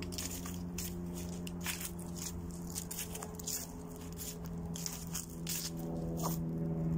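Footsteps crunching and crackling through dry fallen leaves and grass, in irregular sharp crunches. A steady low hum runs underneath and grows louder near the end.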